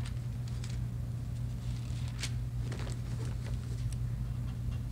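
A steady low hum, with a few faint rustles and light clicks about halfway through.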